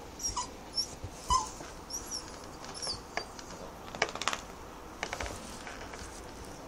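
Small dog giving a couple of short whining yelps early on, amid repeated high-pitched chirps, with a quick run of sharp clicks about four seconds in.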